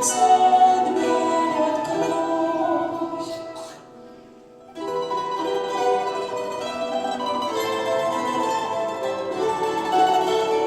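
Christian song: a sung phrase fades out in the first few seconds, then after a short pause an instrumental passage of plucked strings comes in.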